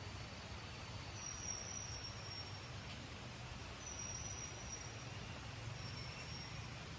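Outdoor ambience: a steady low hum with thin, high whistled calls, about four of them, each lasting roughly a second and drifting slightly down in pitch.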